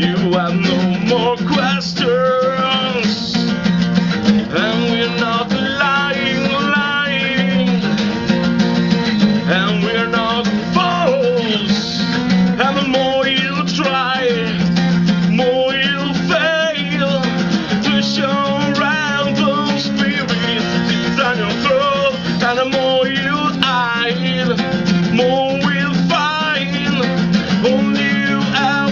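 Live acoustic band performance: acoustic guitar strumming with a singing voice carrying a wavering melody.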